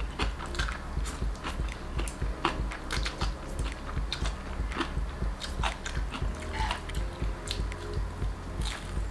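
Close-up chewing and biting of spicy instant noodles, with many quick wet mouth clicks and smacks, and a bite into fried tofu near the end. Soft background music runs underneath.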